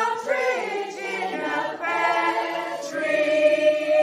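Mixed group of amateur singers, men and women, singing together the closing line of the carol, ending on a long held note near the end.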